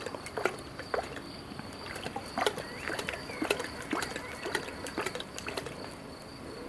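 A lion lapping water with its tongue: a long run of irregular wet slurps and splashes from a prolonged drink.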